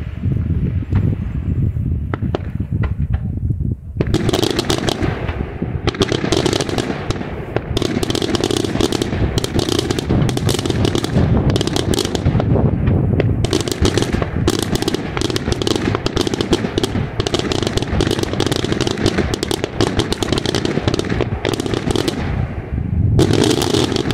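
Daytime aerial fireworks: a rapid, dense barrage of bangs and crackling reports. It is sparser for the first few seconds and near-continuous from about four seconds in, over a steady low rumble.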